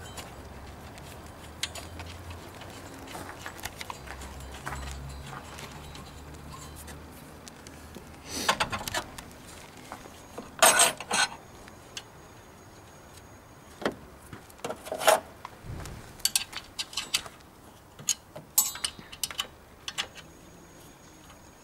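Metal clinks, knocks and rattles of wrenches and a new alternator being handled and seated into its mounting bracket. They come scattered through the second half, a few sharp and loud, over a low steady hum.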